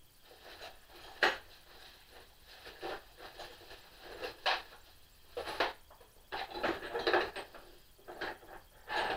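Small hand tools from the lathe's accessory toolbox clinking and knocking as they are picked out and handled: a dozen or so irregular clicks and clatters, several in quick clusters in the second half.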